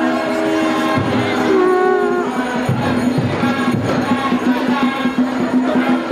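Several conch shells blown together, sounding overlapping long steady tones at different pitches, one low note held through the second half. Underneath are drumbeats and jingling percussion.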